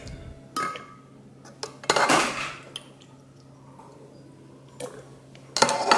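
Boiled jalapeño and serrano chiles being lifted out of their cooking water and dropped into a blender jar: about four separate knocks and clatters, with water dripping back into the pot.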